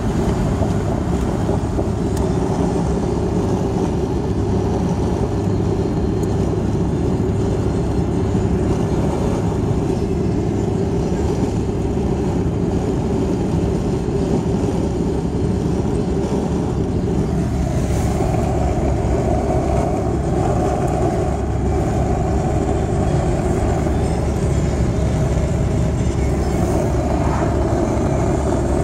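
Steady road noise of a moving car heard from inside the cabin: tyre and wind rumble, heaviest in the low range, with no breaks.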